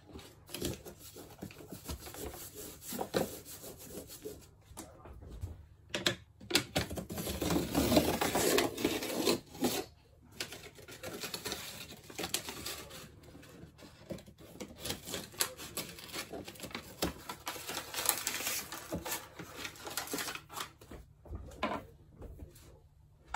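Hands rubbing and pressing glued paper wallpaper against a wall, with irregular scraping and scattered clicks. It is loudest about a third of the way in.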